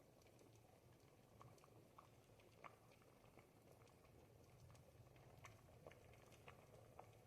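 Thick ribollita, a Tuscan bread and vegetable soup, simmering in a pot: faint bubbling with irregular small pops and plops, about one or two a second, over a low steady rumble.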